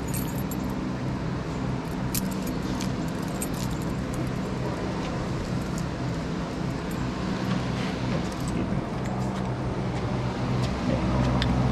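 A steady low engine-like hum, such as a vehicle running, throughout. Scattered light clicks and jingles, like keys or small objects being handled, sit on top of it.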